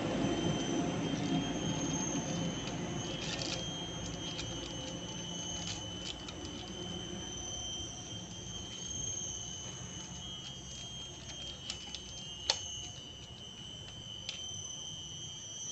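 A steady high-pitched insect trill, cricket-like, with a few sharp metal clicks in the last few seconds from parts of a dismantled Honda Supra Fit engine being handled.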